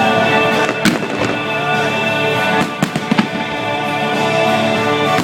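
Fireworks shells bursting over steady music: one sharp bang about a second in and two close together near three seconds, with fainter crackles between.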